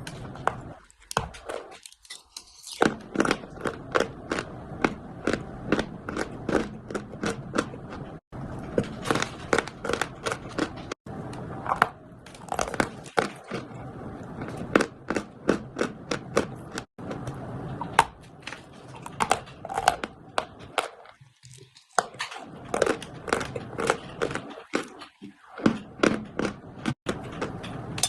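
Chalk being bitten and chewed close to the microphone: a fast run of sharp, crisp crunches, several a second, broken by a few short pauses.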